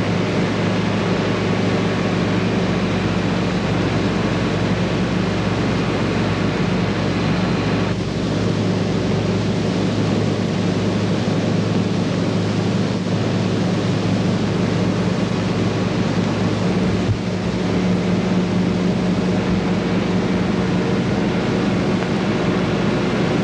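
Steady drone of running machinery: a constant low hum under an even hiss, dipping briefly twice.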